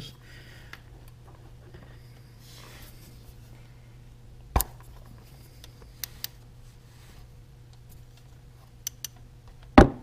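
Long ratchet with a 13 mm socket straining on a tractor's hydraulic-oil drain plug: a sharp click about four and a half seconds in, a few light metallic ticks, then a loud sharp crack near the end as the plug breaks loose. A steady low hum runs underneath.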